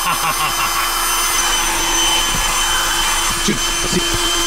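Electric air-mattress pump running steadily with a constant hum, inflating an air mattress, powered from the car through a plug-in power inverter.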